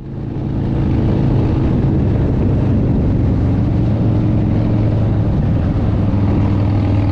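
Harley-Davidson Dyna Fat Bob V-twin engine and exhaust running steadily at cruising speed, mixed with wind and road noise. It grows louder over the first second, then holds even.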